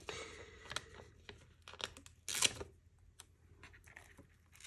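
Feather stickers being peeled off their backing sheet and pressed onto paper: light paper crinkles and small taps, with one short ripping peel about two and a half seconds in. The stickers cling hard to their backing.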